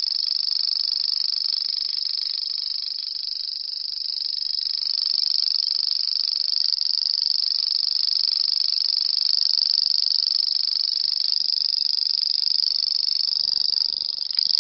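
Grasshopper stridulating: a continuous, steady, high-pitched buzzing trill without breaks.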